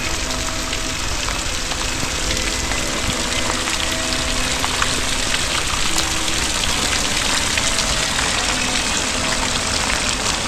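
Steady rain falling, with many separate drop hits ticking through it.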